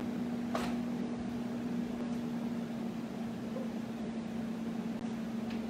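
Steady low hum of a kitchen appliance. About half a second in there is a faint click as an over-the-range microwave door is opened, and near the end a sharp clack.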